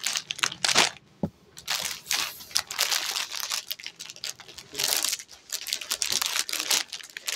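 Plastic packaging of a packed suit set crinkling and rustling in irregular bursts as it is handled and stood on a counter, with a single light knock about a second in.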